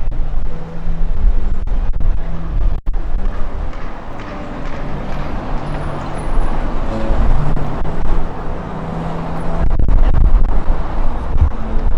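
Gusty wind buffeting the microphone in uneven rumbling surges, over a steady wash of city street noise.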